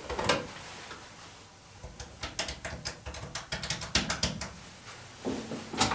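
Desk telephone handset lifted off its cradle with a click, then a quick run of keypad button clicks as a number is dialled.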